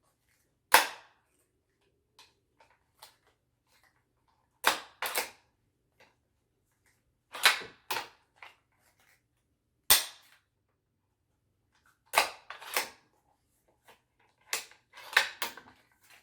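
Savage Axis II bolt-action rifle's bolt being worked by hand: sharp metal clacks, mostly in pairs as the bolt is opened and closed, repeated every two to three seconds.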